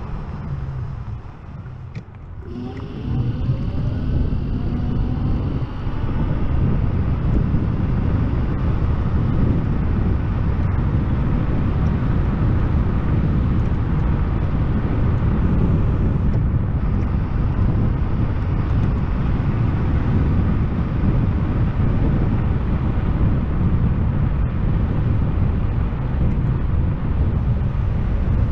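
YUME X7 electric scooter ridden along a street: a steady rush of wind on the microphone and tyre noise. About two seconds in the sound eases off, then a whine rises in pitch as the scooter speeds up again, and the rush settles loud and steady.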